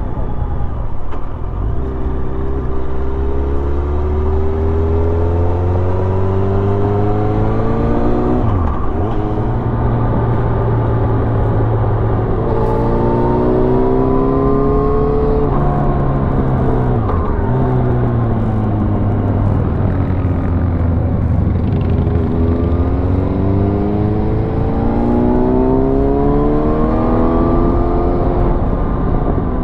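Motorcycle engine accelerating through the gears: the engine note climbs, drops sharply at gear changes about a third and halfway through, sinks as the bike eases off, then climbs again and drops near the end. A steady rush of wind noise runs underneath.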